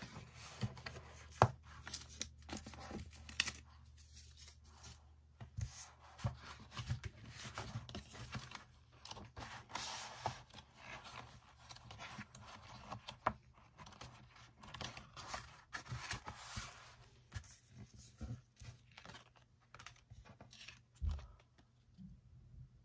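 Paper and cardboard of a K-pop album being handled: the album sliding out of its cardboard sleeve, photobook pages turning and photocards being shuffled, heard as irregular rustling and scraping with small taps and knocks.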